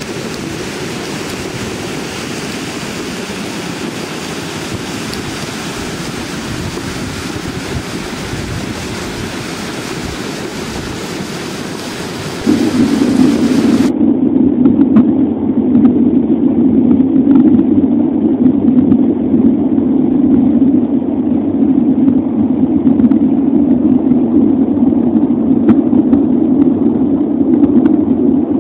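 Mountain torrent in flood, its fast muddy water rushing over the gravel bed in a steady broad roar. About twelve seconds in the sound jumps to a louder, lower and more muffled rushing rumble of the debris-laden flow.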